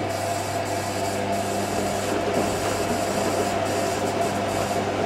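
IKEA RENLIG IWM60 washing machine filling with water for its final rinse while the drum tumbles: a steady hum with water running in and the drum motor turning.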